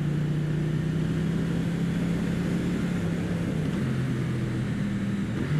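Triumph Street Twin's 900 cc parallel-twin engine running under way at steady road revs, its note stepping a little lower a few seconds in as the revs ease, over steady wind noise.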